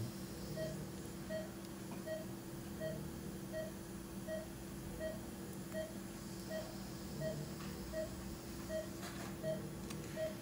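Patient monitor's pulse oximeter beeping with each heartbeat: one short steady-pitched beep about every 0.7 seconds, a regular pulse of roughly 85 a minute. Under it a steady electrical hum.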